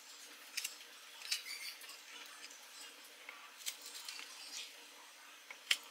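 Small star-shaped food cutter pressed through cooked carrot slices. It makes light handling sounds with a few sharp clicks and taps, four of them standing out.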